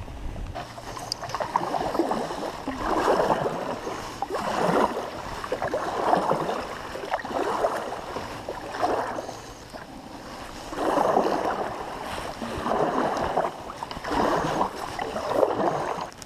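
Kayak paddle strokes swishing and splashing through the water in a steady rhythm, about one stroke every second and a half, with a brief pause about ten seconds in.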